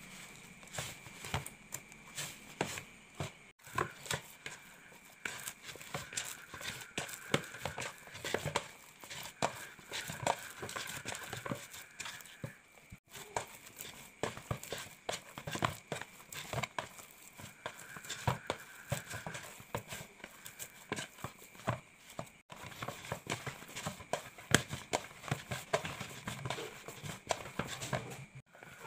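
Hands kneading a stiff yeast dough of flour, margarine and water in a plastic bowl: irregular soft slaps, squishes and taps of dough against the bowl, working it toward a smooth, elastic dough.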